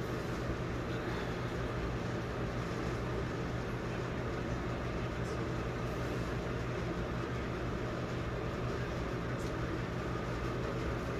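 Steady low mechanical hum over an even hiss, unchanging throughout: room background noise of a running appliance.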